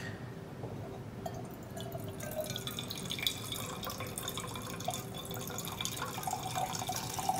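A thin stream of liquid poured from a stainless steel cocktail shaker into a copper mug, trickling and splashing steadily.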